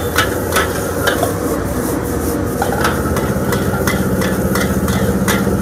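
Long-handled metal spatula scraping and clacking against a wok as fried rice is stir-fried, about two to three strikes a second, over a steady sizzle of frying. The rice is kept moving so it cooks evenly.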